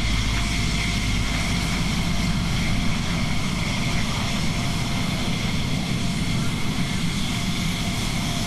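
F-16 fighter's jet engine running at taxi power, a steady high whine over a low rumble.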